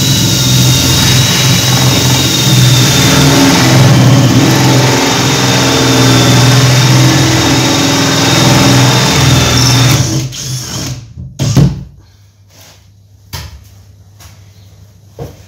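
Makita cordless drill spinning a hole saw through the deck of a fibreglass bath: a steady whine over a grinding cut for about ten seconds, then the drill stops. A few knocks and clatters follow, one loud knock a second or so after the drill stops.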